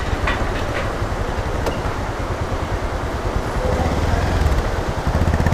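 Motorcycle engine running at low speed under a steady rushing noise as the bike rolls across a steel-decked suspension bridge, with a few light clicks in the first couple of seconds.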